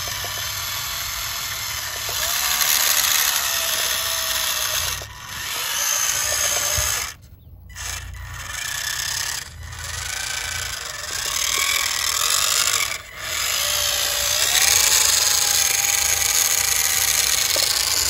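Homemade remote-control model tractor's electric drive motor and gearbox whining as it drives up a sand pile, the pitch rising and falling with the throttle and cutting out briefly several times, longest for about a second in the middle. It is running on a freshly swapped battery.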